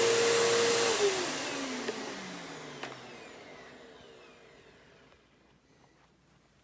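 Bissell Powerforce Turbo upright vacuum switched off with a click about a second in. Its motor whine falls steadily in pitch and fades over about four seconds as the motor winds down to a stop.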